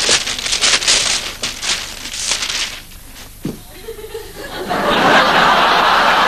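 Gift wrapping paper rustling and crinkling as a present is unwrapped. Then, about three-quarters of the way through, audience laughter breaks out and becomes the loudest sound.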